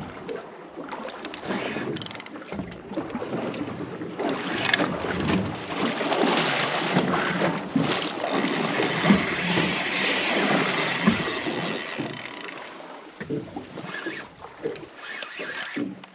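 Water splashing as a hooked dolphin fish (mahi-mahi) thrashes at the surface beside the boat, with wind buffeting the microphone; busiest in the middle stretch.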